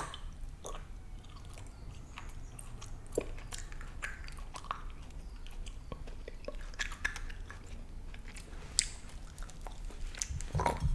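Close-miked chewing of a jelly bean: soft, wet mouth clicks and smacks scattered through, with one sharper click near the end.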